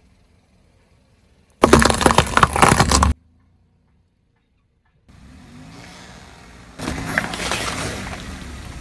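A car tyre rolling over and crushing brittle objects: a loud crackling crunch lasting about a second and a half. After a sudden cut to silence comes the car's engine, then a second crackling crunch begins near the end.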